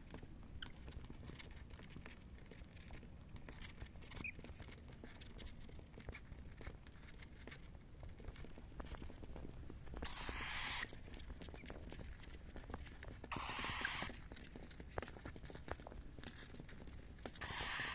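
Cockatiels scuffling and scratching, with scattered light clicks and a couple of faint short chirps. Three raspy hissing bursts come about ten, thirteen and seventeen seconds in.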